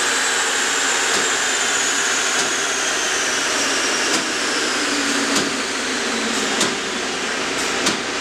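Subaru WRX STI on a Dynojet chassis dyno winding down after a pull: a steady rushing noise from the rollers and the big cooling fan, with a high whine slowly falling in pitch. From about four seconds in there is a light click about every second and a bit.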